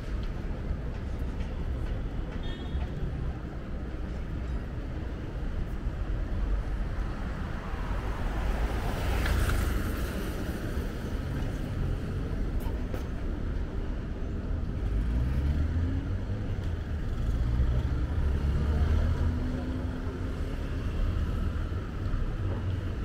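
City street traffic: a steady rumble of car engines and tyres, with a vehicle passing close about nine seconds in and an engine rising in pitch as it pulls away in the later part.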